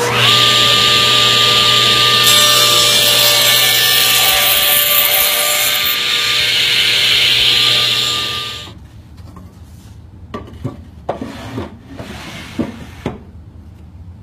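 A woodworking power tool running and cutting through wood, with a loud steady hiss and whine; it stops about eight and a half seconds in. A few separate knocks follow.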